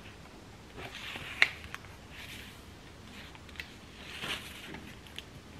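Pages of a hardcover book being turned by hand: three soft paper swishes, about a second in, past two seconds and past four seconds, with a few light ticks between them, the sharpest about a second and a half in.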